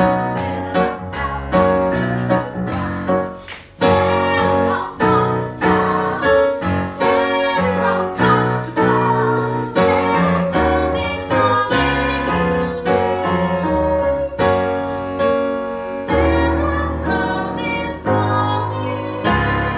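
Roland digital piano played in a lively accompaniment with a woman singing a Christmas song over it.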